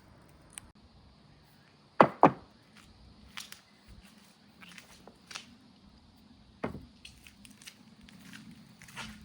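Glass marbles clicking and knocking on a marble run's track: two loud knocks in quick succession about two seconds in, another a little before seven seconds, and lighter scattered clicks in between.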